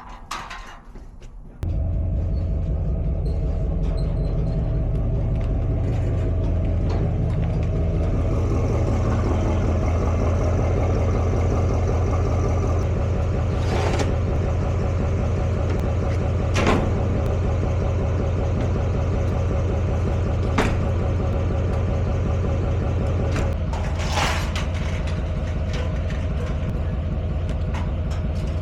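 A motor running steadily at a constant speed, with a few sharp metallic clanks over it.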